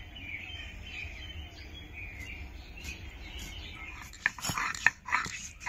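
Birds chirping over steady background noise, then a dog barking several times in quick succession from about four seconds in.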